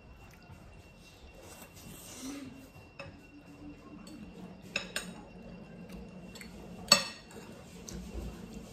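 Metal forks and spoons clinking and scraping against clear glass plates while noodles are eaten: a few sharp separate clinks, the loudest about seven seconds in.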